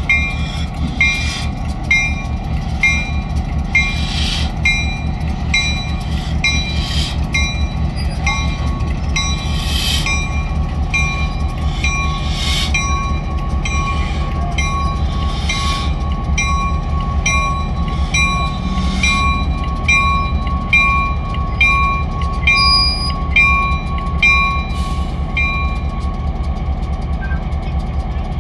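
Diesel switcher locomotive engine running steadily as it passes slowly, with a grade-crossing bell ringing about once a second. A steady high-pitched whine grows louder in the second half.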